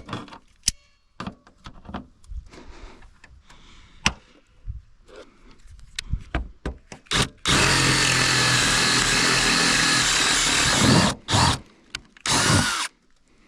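Power drill drilling out a rivet: scattered light knocks and clicks of handling, then the drill runs steadily for about three and a half seconds, followed by two short bursts.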